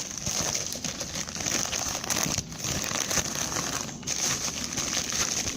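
Packaging being unwrapped by hand: wrapping material crinkling and rustling, with short pauses about two and a half and four seconds in.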